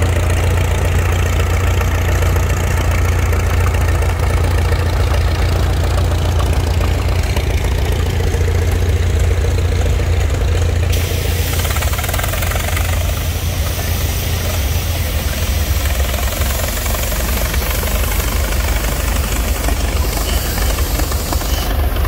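Engines of vintage crawler tractors running at low, steady parade speed as the machines pass, a continuous deep engine sound. The sound shifts abruptly about halfway through.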